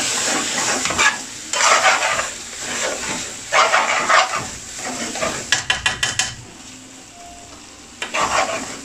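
Chicken curry sizzling in an aluminium pan while a long-handled metal spoon stirs it in scraping sweeps about a second long, with a quick run of clicks from the spoon against the pan about five and a half seconds in.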